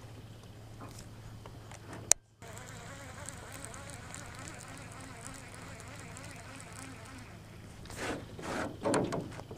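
Fishing reel being cranked on a retrieve, giving a steady buzzing whirr, with a sharp click about two seconds in. Louder irregular knocks and rustles near the end.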